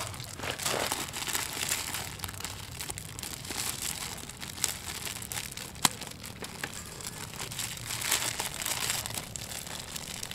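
Thin plastic bag of sliced bread crinkling as it is handled and opened, with a sharp click about six seconds in.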